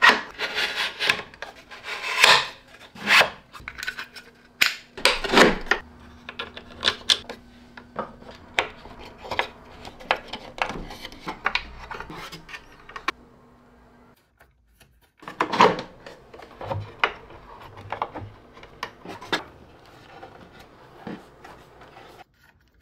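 Handling noise from 3D-printed plastic parts being fitted onto a 3D printer's frame: plastic rubbing and scraping against plastic and metal, with many short sharp clicks.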